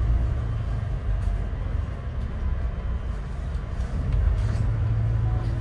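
Scania N94UD OmniDekka double-decker bus's diesel engine running as the bus moves slowly, heard inside the upper deck as a steady low rumble and hum. It eases off in the middle and builds again about four seconds in.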